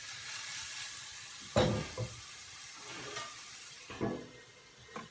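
Chopped onions frying in oil in a pot, a soft sizzle, with sharp knocks of the metal pot and its glass lid about a second and a half in and again near the end. The sizzle drops away about four seconds in as the lid goes on.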